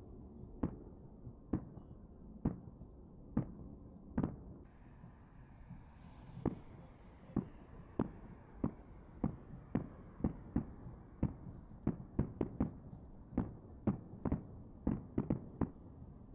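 A series of sharp knocks over a low steady background, about one a second at first and then quicker, some in quick pairs, toward the end.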